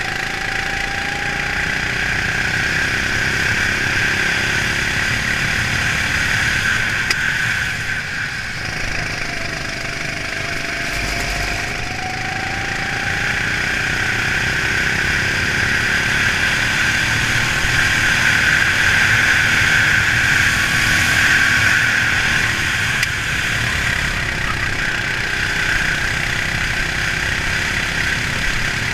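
Racing kart's engine running hard through a lap, close up from the onboard camera, its pitch rising and falling as the throttle is worked through the corners.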